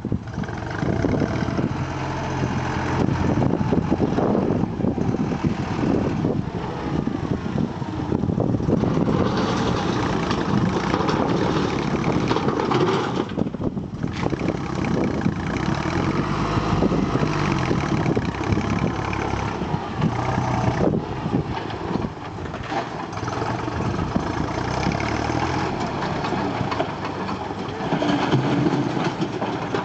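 Backhoe loader's engine running, its level rising and falling a little throughout.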